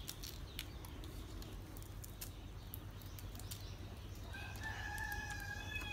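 A rooster crows once, a single long held call starting about four seconds in. Before it come faint scattered clicks as grilled shrimp are peeled by hand.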